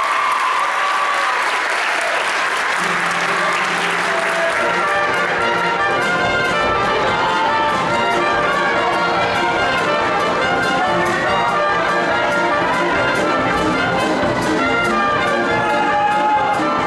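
Live band music with brass (trumpets and trombones) backing a show choir's dance number; a bass line comes in about three seconds in and a steady drum beat a couple of seconds later. Audience applause mixes in over the opening seconds.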